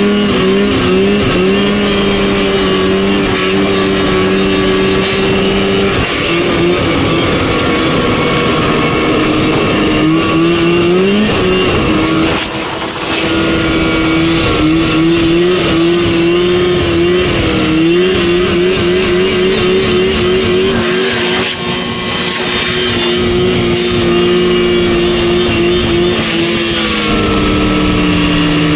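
Rotax 503 two-cylinder two-stroke snowmobile engine running hard at high, fairly steady revs. The pitch warbles, dips briefly about twelve seconds in and again around twenty-two seconds, and eases down near the end as the revs drop.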